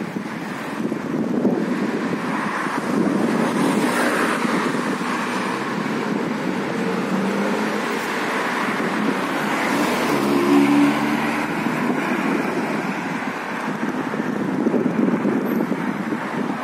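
Street traffic noise: a steady hum of passing cars, with one vehicle's engine passing louder about ten seconds in.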